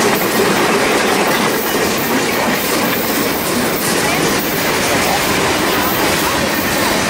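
Freight cars, a centerbeam flatcar and then covered hoppers, rolling past close by: a steady, loud noise of steel wheels running on the rails.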